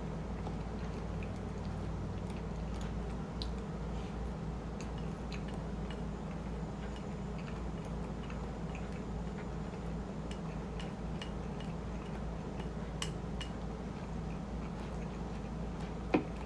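Quiet eating sounds over a steady low hum: soft, scattered mouth clicks of chewing, with one sharper click near the end.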